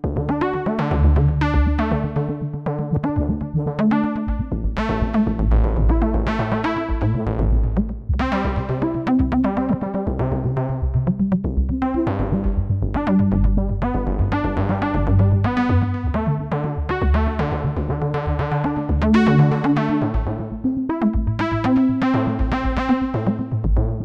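Access Virus TI2 Desktop virtual analogue synthesizer playing an improvised melodic synth part: short notes that die away quickly, several a second, over sustained low bass notes. The music starts suddenly at the beginning.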